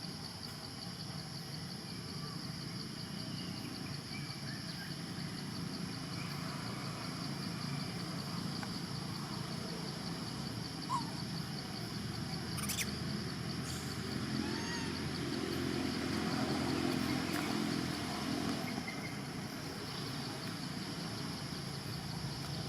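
Steady outdoor background: a high, fast-pulsing insect drone, with a low engine rumble that swells for a few seconds past the middle and fades again, and one sharp click about two-thirds of the way in.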